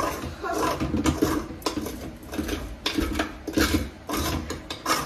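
Scraping inside a metal cooking pot: repeated, irregular strokes about every half second to a second.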